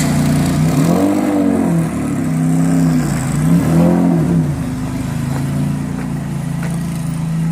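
Porsche 930 twin-turbo's air-cooled flat-six idling, blipped twice so the revs rise and fall quickly, then settling back to a steady idle.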